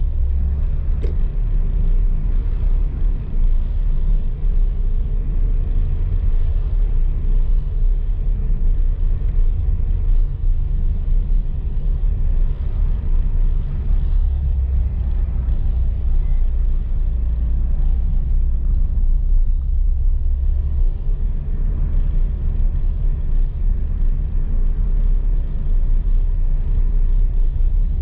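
A car driving slowly along a town street, heard from inside the cabin: a steady low rumble of engine and tyre noise.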